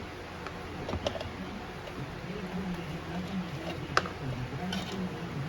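A few sharp clicks and taps of metal parts being handled as an HEI distributor is opened up to get at its ignition module, with one loud click about four seconds in. A faint low hum rises and falls behind them.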